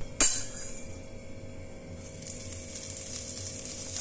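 A sharp metal clank at the start, then a steady sizzle as hot ghee with fried fennel and cinnamon is poured from a small steel kadai into the potol curry as a final tempering.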